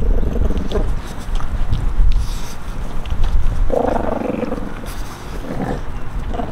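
French Bulldog puppies growling low and continuously while tugging at a whole raw chicken, with a louder snarl at about four seconds and a shorter one a little over a second later.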